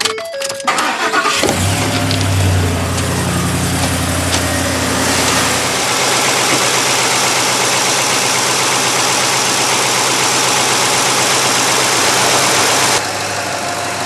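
A 2011 Ford F250's 6.2-litre gas V8 starts, catching about a second in and running at raised revs before settling to a steady idle about six seconds in. It runs smoothly, "purring like a kitten", with its ticking cured now that the corroded coil-on-plug boot has been rebuilt.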